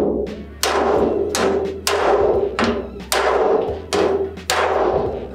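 Hammer blows on the rim of a handmade copper sheet-metal sink, seven strikes a little under a second apart, each leaving the copper box ringing briefly.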